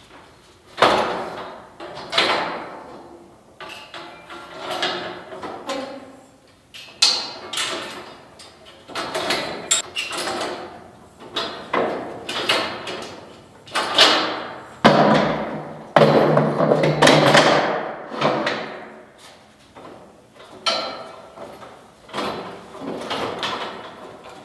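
Clanks and knocks from a steel scaffold tower's frames and walk boards as a person climbs it and moves the boards, coming every second or two. Each knock rings out and echoes in a large hall.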